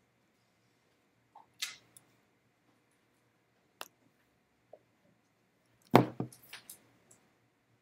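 Scattered small clicks and rustles in a quiet room, with one louder short thump about six seconds in.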